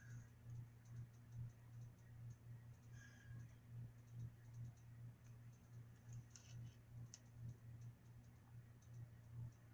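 Near silence: a faint steady low hum, with a few soft clicks and scrapes of small plastic toy pieces being handled.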